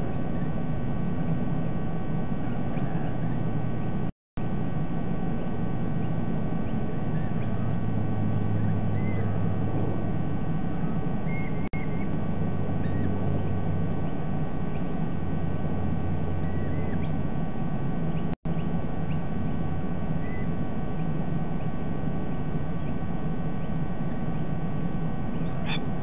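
Steady outdoor ambience of low hum and hiss, with faint, short bird chirps scattered through it. The sound cuts out completely for a moment about four seconds in and again past the middle, and there is a click near the end.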